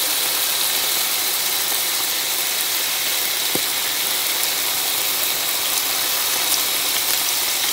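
Steak searing in hot olive oil in a pan: a steady sizzle with fine crackles.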